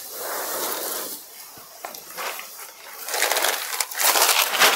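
Rustling and crinkling of stiff silk sarees being handled and spread out, in several spells, loudest toward the end.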